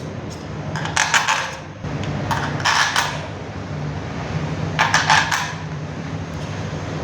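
Copper busbars clinking against one another and against the battery cell terminals as they are handled and laid in place, in three short bursts of metallic clicks about one, two and a half, and five seconds in. A steady low hum runs underneath.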